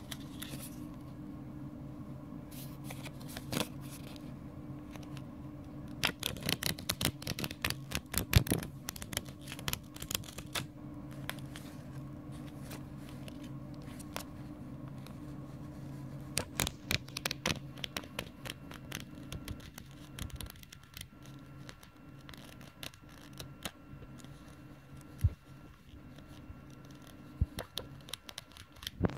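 Paper pages of a small photo flip book being thumbed and flicked by hand: quick runs of papery flicks and taps, densest about a fifth of the way in and again just past the middle, with scattered flicks elsewhere, over a steady low hum.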